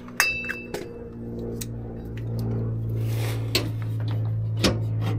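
Metal clicks and taps as a bolt is started into the Hummer H3's front skid plate, the first with a short bright ring. A steady low hum runs underneath and grows louder about two seconds in.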